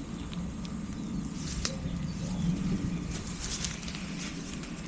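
Footsteps crunching through dry leaves and brush: irregular sharp crackles over a steady low rumble.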